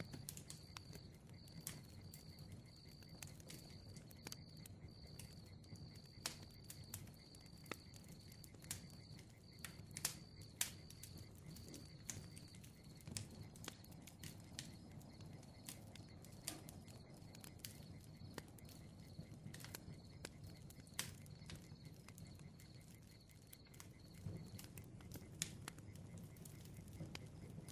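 Bonfire crackling: irregular sharp pops and snaps over a low steady rumble of the flames. A faint, high, evenly pulsing chirp runs beneath and fades out near the end.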